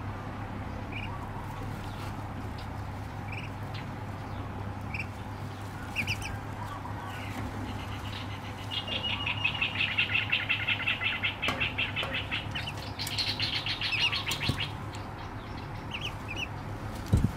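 Duckling peeping: single short peeps every second or so, then a fast, louder run of peeps lasting about six seconds midway.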